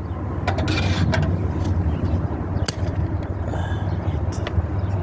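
Steady low rumble, with a few sharp clicks and taps scattered through it and a brief scraping rustle about a second in.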